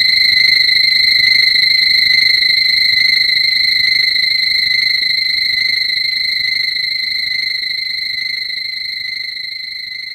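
Electronic sound effect from the Showa-era Mechagodzilla films: a high, steady buzzing tone with a fast flutter that starts abruptly and slowly fades away over about ten seconds.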